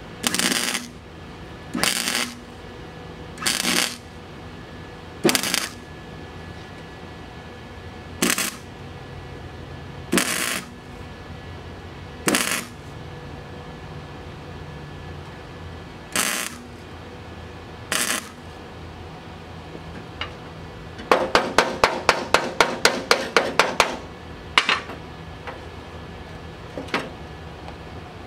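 Hammer striking sheet metal with a ringing clang, single blows every second or two. Near the end comes a quick run of about a dozen lighter taps, roughly four a second, followed by two more single blows.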